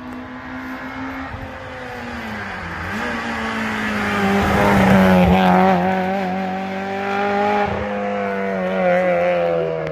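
A rally car's engine running hard as the car comes along the stage and passes, loudest about halfway through, its pitch dipping and picking up again with gear changes.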